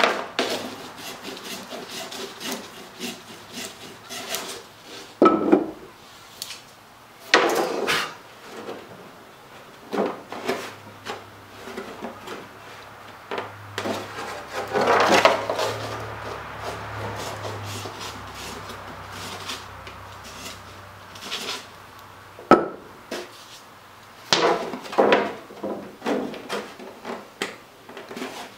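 Small block plane shaving the edge of a thin cedar strip in scattered strokes, with wood rubbing on wood and a couple of sharp knocks as the strip is test-fitted against the other strips of the hull.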